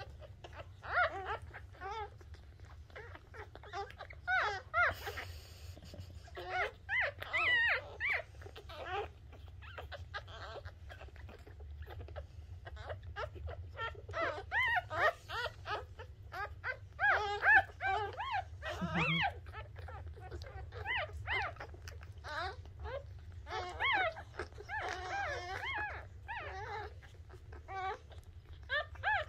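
Newborn Shih Tzu puppies squeaking and whimpering while they nurse: many short, high-pitched, wavering cries that come in clusters and overlap.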